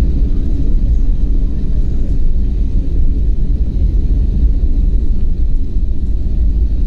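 Cabin noise inside an Airbus A321 rolling on the ground: a loud, steady low rumble from the jet engines and the wheels on the pavement.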